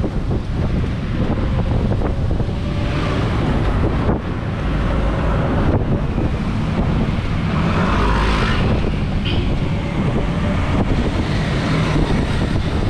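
Wind buffeting the microphone, with low road rumble, while riding in an open-sided electric bike. A brief brighter whoosh comes about eight seconds in.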